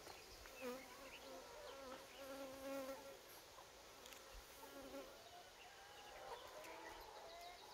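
Faint buzzing of honeybees flying near the hives, swelling and fading several times as bees pass.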